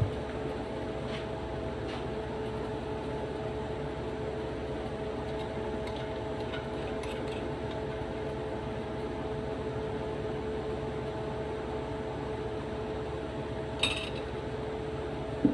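Steady kitchen hum with a few faint level tones; about fourteen seconds in, a metal spoon clinks once against a ceramic plate.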